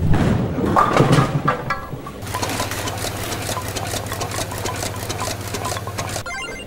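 A bowling ball strikes the pins with a clattering crash, then the pinsetter machinery in the pit runs: a steady low hum with fast, even rattling that cuts off suddenly about six seconds in.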